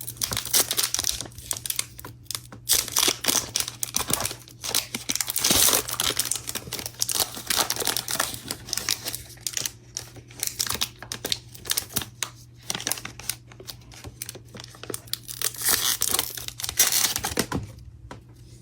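A pack of Upper Deck SP Authentic hockey cards being torn open: the wrapper tearing and crinkling in irregular rustling bursts, dying away near the end.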